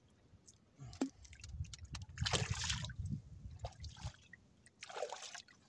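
Water splashing twice at the side of a small outrigger fishing boat as a baited handline is put over the side, with a knock about a second in and low rumbling under the first splash.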